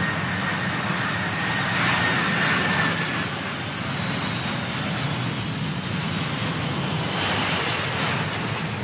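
Air Force One, a Boeing 747 (VC-25A), touching down on a runway: its four turbofan jet engines run with a steady rushing noise and a high whine that fades out about three seconds in.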